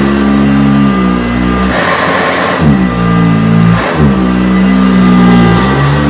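Eureka heavy-duty commercial upright vacuum cleaner running on medium-pile carpet, its motor tone sagging in pitch and recovering several times as it works. About two seconds in there is a brief rush of hiss, with a smaller one near four seconds.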